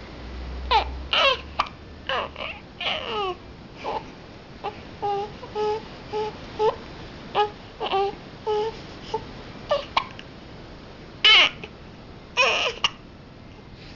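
A baby's voice: a string of short, high-pitched babbling and fussing sounds, some sliding down in pitch, with two louder cries near the end.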